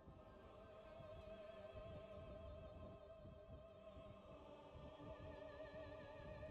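Soft background music of slow, long held notes with a wavering vibrato.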